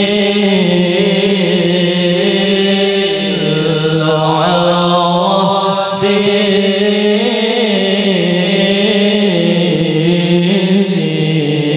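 A man's voice chanting an Arabic devotional melody through a PA sound system, with long held, ornamented notes that slide slowly up and down in pitch.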